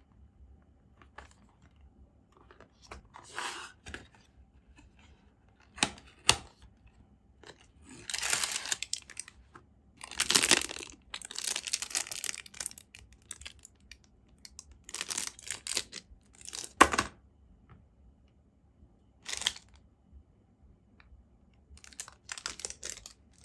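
Unboxing packaging being handled: bursts of plastic rustling and tearing, with a few sharp clicks and knocks, the loudest about two-thirds of the way through.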